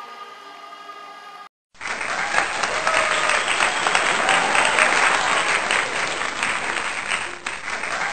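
Loud, dense applause that starts abruptly after a brief silence about a second and a half in and carries on steadily, following a quieter stretch of sustained tones that cuts off.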